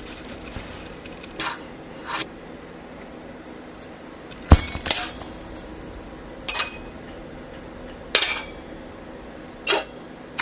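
Glassware clinking: about seven sharp, separate glass clinks at uneven intervals, the loudest about four and a half seconds in, over a faint steady background.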